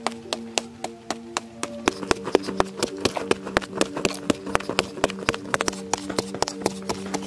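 A short-handled metal digging tool striking and breaking up clay soil in quick repeated blows, several a second, over sustained background music chords that change about two seconds in.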